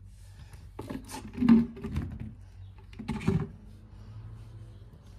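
Squigz silicone suction-cup toy pieces being handled and pressed together, with short knocks and thumps in two clusters, about a second and a half in and again about three seconds in.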